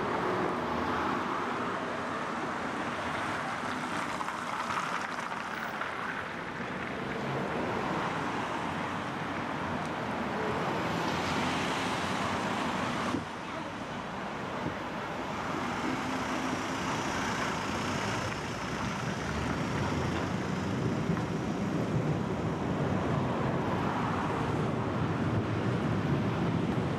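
Vintage tram running along city streets: a steady rumble of motor and wheels on the rails, with a faint high squeal for a few seconds past the middle.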